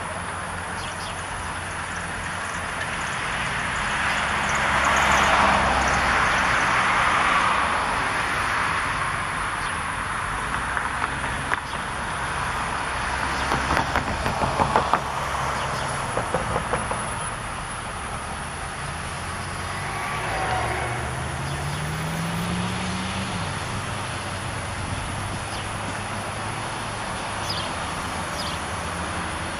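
Road traffic going by: a vehicle passes with a swell of noise about four to eight seconds in, and a vehicle's engine rises in pitch about twenty seconds in. A run of short, sharp taps comes in between.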